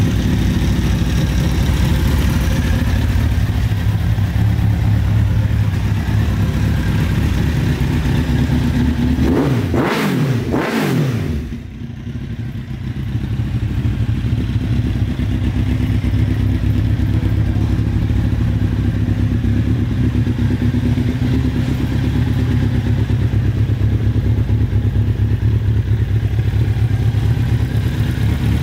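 2003 Kawasaki Z1000's inline-four engine idling steadily through an aftermarket Black Widow carbon silencer, revved twice in quick succession about ten seconds in, then settling back to idle.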